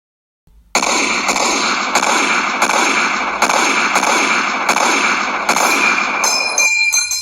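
War sound effect: a loud, steady rushing hiss with a faint pulse about every two-thirds of a second, turning into a brief metallic ringing near the end before it cuts off suddenly.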